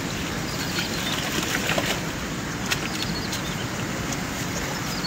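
Muddy water sloshing and splashing as hands grope for fish in a shallow, weedy channel, with a few sharp splashes about two seconds in, over a steady rushing outdoor noise. A bird calls in short descending trills.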